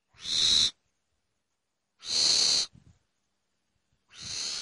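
Three short, harsh, hissing screeches of an animal call, about two seconds apart; the last is weaker.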